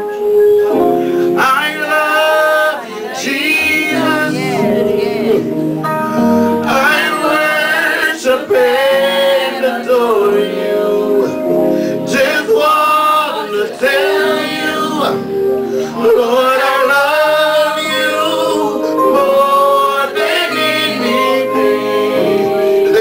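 Gospel worship song: voices singing long, bending held notes over instrumental accompaniment.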